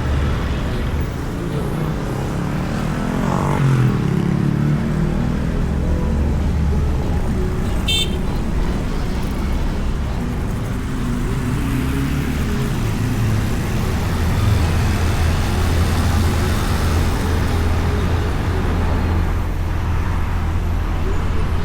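Motorbike engine running steadily under wind and road rush, heard from a microphone inside the rider's helmet while riding in traffic. A short, high-pitched blip comes about eight seconds in.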